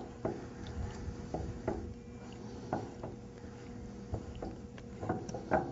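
Scattered light clicks and taps of a metal end cap being unscrewed by hand from a waterjet intensifier's high-pressure cylinder, with the check valve assembly coming out with it, over a faint steady hum.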